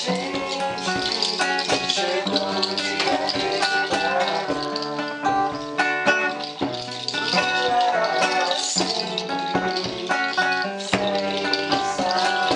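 Two acoustic guitars strummed and picked together, with a rattle shaken in time.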